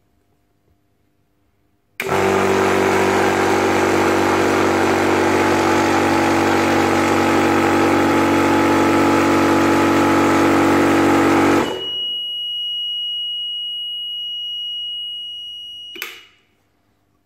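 Yong Heng 300-bar high-pressure air compressor running steadily, then cutting out by itself about ten seconds in as it reaches its set shut-off pressure of 20 MPa. Its alarm then sounds a continuous high-pitched beep for about four seconds, ending with a short click as the switch is pressed.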